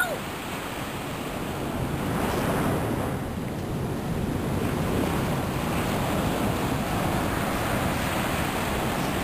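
Ocean surf breaking and washing up the beach in a steady rush that swells about two seconds in, with wind buffeting the microphone.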